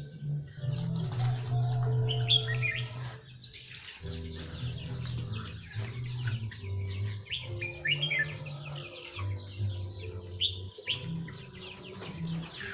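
Small songbirds chirping and twittering in quick, repeated bursts: a bird song used as a lure call for trapping birds. Under the chirps runs a low steady drone that shifts pitch every second or two.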